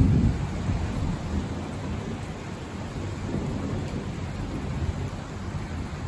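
Thunder rumbling over a steady hiss of rain, loudest at the very start and dying away over the first couple of seconds.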